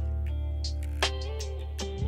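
Background music: a hip-hop instrumental beat with a deep sustained bass and ticking hi-hats.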